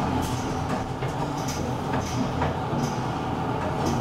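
A 1971 Asea-Graham inclined elevator car running along its rails, heard from inside the car: a steady low rumble with short, high-pitched ticks that recur irregularly about twice a second.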